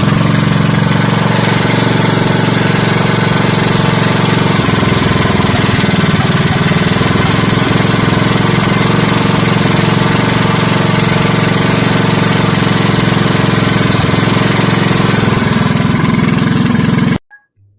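Mini bike's small single-cylinder engine, fitted with a Mikuni VM22 carburetor, running at a steady idle, dipping briefly in speed once about six seconds in and recovering.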